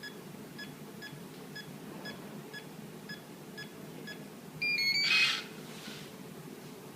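Electronic smart-lock keypad beeping once per key press, about two beeps a second, as a key code is entered. Just before five seconds in comes a louder short run of stepped tones, the lock's unlock tune, followed by a brief noisy burst.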